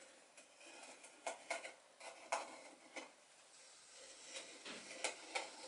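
Faint pencil strokes scratching on wood, with light taps and knocks of small wooden pieces being handled, in short irregular bursts.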